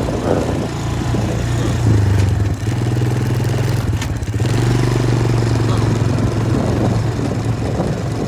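Small off-road vehicle engine running along a dirt trail, with rattling from the machine; it speeds up about two seconds in, eases off briefly, then picks up again near the middle.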